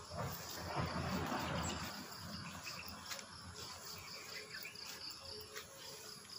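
Insects chirping: a faint, high, pulsing chirp. A rush of noise swells and fades over the first two seconds.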